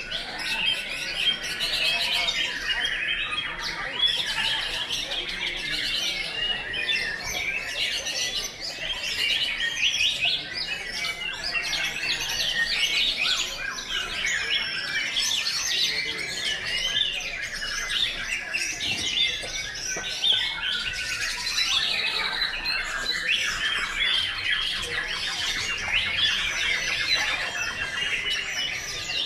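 Many white-rumped shamas (murai batu) singing at once, a dense overlapping chorus of fast varied whistles, chirps and squawks.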